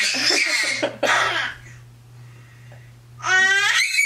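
A baby screaming in shrill, high-pitched squeals: one long squeal, then a short harsher cry just after a second in, a pause, and another rising squeal near the end.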